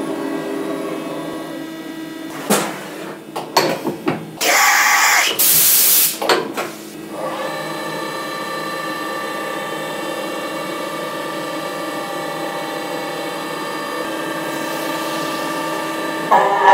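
CNC milling machine spindle running with a steady whine. A few seconds in there are sharp knocks and two loud hissing blasts as the machine changes from a face mill to an end mill; the spindle then settles into a new steady whine. Near the end come two louder rough bursts as the end mill bites into beetroot.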